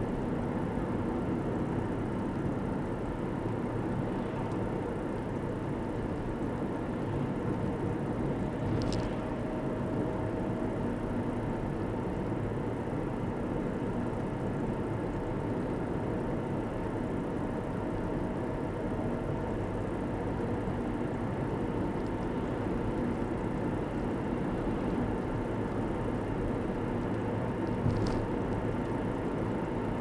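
Steady tyre and engine noise of a car driving at road speed, heard inside the cabin, with a couple of faint brief clicks.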